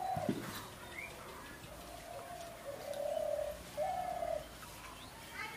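A dove cooing: three low, held coos in a row near the middle, each about half a second long, with small birds giving a few short chirps.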